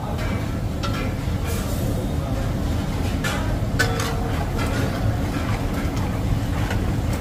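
A metal ladle scraping and knocking against a large metal handi as chicken is stirred in yogurt masala, a few separate scrapes and clinks over a steady low rumble from the kitchen range.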